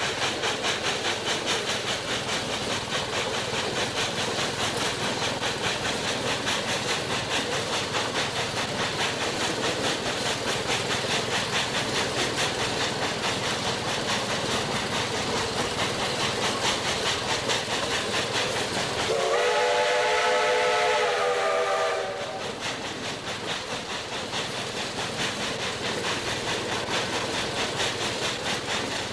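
Steam locomotive running with a fast, steady chuffing rhythm and a hiss of steam. About two-thirds of the way through, its whistle sounds one chord-like blast lasting about three seconds.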